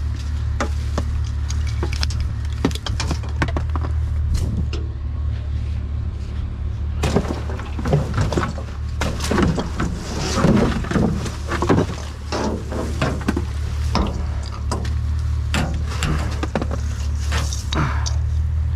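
Scrap being handled: repeated clanks, knocks and rattles, busiest in the middle, over a steady low hum from an idling vehicle engine.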